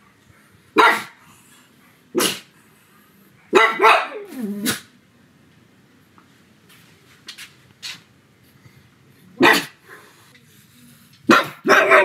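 A pug barking loudly in short, sharp barks: single barks a second or so apart, a quick run of three or four, a long pause, then more barks near the end.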